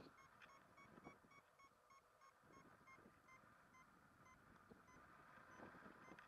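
Faint beeping of a paragliding variometer, short steady beeps about three a second, the tone it gives while the glider is climbing. Faint wind noise on the microphone underneath.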